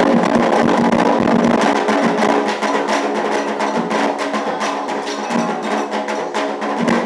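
Live ceremonial drumming: a dense, steady run of hand-drum and sharp clapper-like strokes under sustained pitched tones, typical of the atabaque drums and singing of an Afro-Brazilian religious ceremony.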